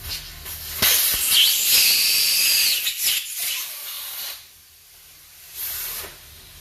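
Compressed air hissing out of a Löwenstein elisa ventilator's air connection. There is one long hiss of about three seconds starting about a second in, then a shorter hiss near the end.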